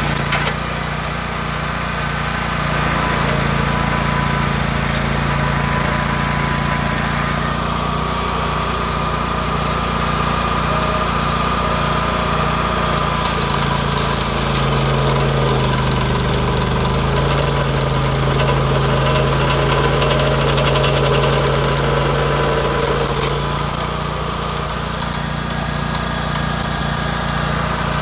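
Rayco RG 1625 stump grinder's engine running at a steady speed, its note dipping briefly about halfway through and shifting again near the end.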